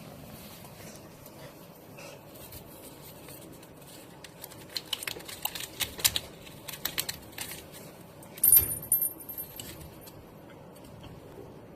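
A run of light clicks and rattles, thickest from about four to nine seconds in, with one louder clatter about eight and a half seconds in that has a thin, high ring to it.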